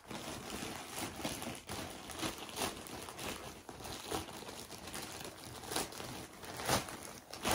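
Packaging crinkling and rustling as a parcel of clothes is opened by hand, with many short sharp crackles and a louder one near the end.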